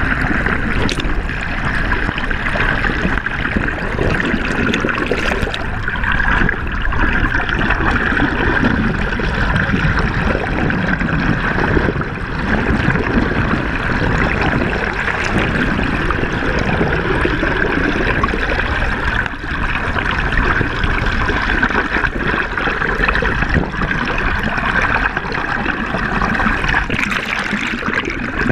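Steady rushing of river water heard underwater through a submerged camera, with an even hiss that is strongest in the upper middle range.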